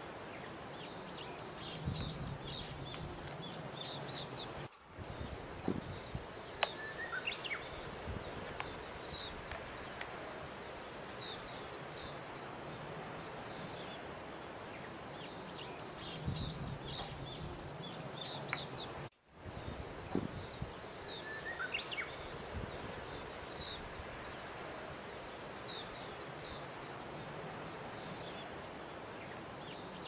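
Small birds chirping over a steady outdoor background hiss, with a few sharp clicks and light knocks from plastic vacuum-cleaner parts being handled. The sound drops out briefly twice, about five seconds in and again near the middle.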